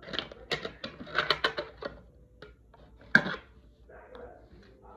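Hard plastic toy playset pieces being handled: a quick run of clicks and knocks, then one sharp loud click about three seconds in.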